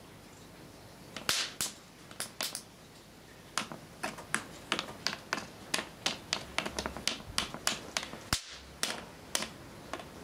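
Capacitor bank discharging onto circuit-board tracks, making sharp electrical snaps as the tracks are blown. There are a few snaps about a second in, then a quick run of them, several a second, from about three and a half seconds on.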